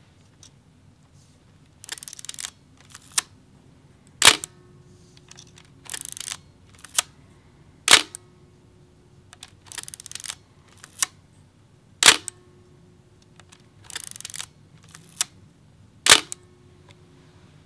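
Minolta XG-M 35 mm SLR shutter firing four times, about every four seconds. Each shot is a loud, sharp clack with a faint low ring after it. It is preceded by a short ratcheting rattle of the film advance being wound and a small click.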